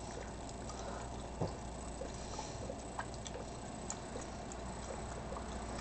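HHO gas bubbling from a tube into a water-filled bottle held upside down in a bucket, driving the water out. It is heard as faint, irregular small plinks and ticks over a steady low hum and hiss.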